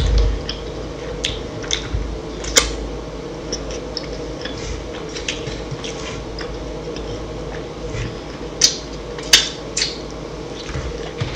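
Close-miked eating mouth sounds: chewing with wet clicks and lip smacks, scattered irregularly, a few sharper smacks about two and a half seconds in and again near nine seconds. A faint steady hum runs underneath.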